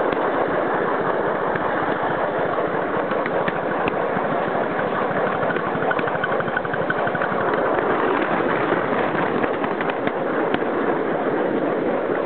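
A 5-inch gauge live steam model GWR 14xx 0-4-2 tank locomotive running along the track: a steady rush of rapid exhaust beats and wheels rolling on the rails, with an occasional sharp click.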